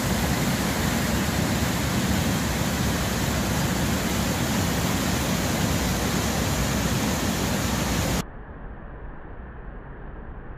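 White water pouring down a rocky river fall, a steady loud rush. About eight seconds in it drops suddenly to a quieter, duller rush.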